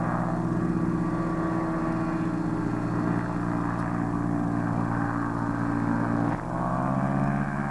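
Propeller-driven light airplane flying low overhead, its engine droning steadily; the tone changes abruptly about six seconds in.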